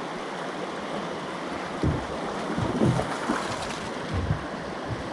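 Shallow creek running over rocks, a steady rush of water, with a few low thumps on the microphone about two, three and four seconds in.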